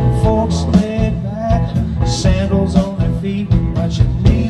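Live country-rock band music: guitar and keyboard lines over a drum beat.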